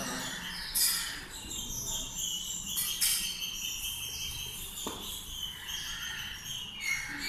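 Many small birds chirping and twittering, their short high calls overlapping throughout, with a single soft knock about five seconds in.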